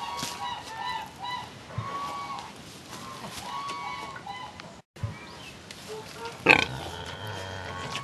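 Domestic pigs grunting in a barn, with hens clucking in short calls through the first half. A loud grunting call comes about two-thirds of the way through, and another at the very end.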